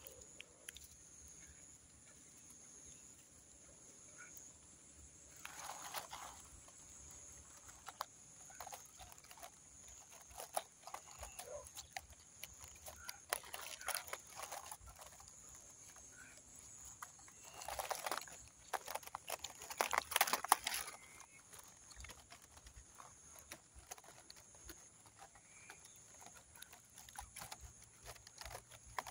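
A few short bursts of rustling, the loudest about two thirds of the way in, over a steady high-pitched drone.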